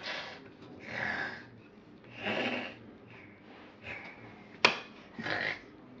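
Snoring plush toy bear playing its recorded snores: a run of breathy snorts and wheezes about a second apart. A sharp click sounds near the end.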